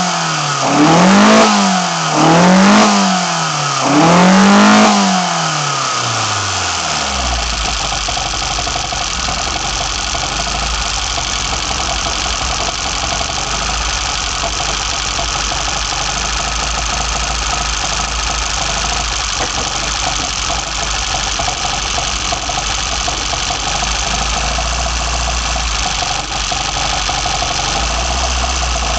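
BMW M10 four-cylinder engine breathing through sidedraft individual throttle bodies, blipped up and down about every second and a half, the last rev held a little longer. It then drops back about seven seconds in to a steady idle.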